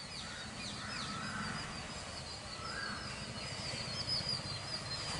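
Birds chirping: a steady run of quick, high chirps, with two lower rising-and-falling calls about a second and three seconds in, over a low rural background rumble.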